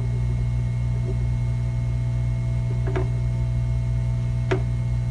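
Steady low electrical hum from the repair bench, with two light clicks about three and four and a half seconds in as a soldering iron tip works over the chip pads on the logic board.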